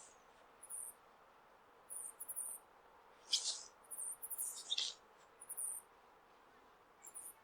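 Ezo flying squirrel (Pteromys volans orii) male giving very high-pitched squeaks in short clusters about once a second, a mating call to attract females in the breeding season.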